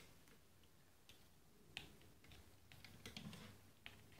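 Faint, scattered light clicks of a plastic doll and toy horse being handled, about half a dozen sharp taps over a quiet room.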